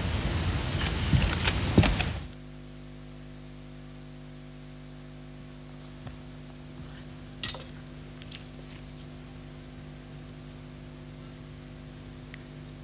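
Audience applauding, cut off abruptly about two seconds in. Then a steady low electrical hum from the hall's sound system, with a few faint clicks.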